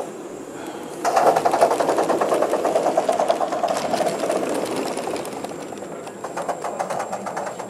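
Gauge 1 model steam locomotive setting off about a second in with a fast, even mechanical clatter that gradually gets quieter as it runs along the track.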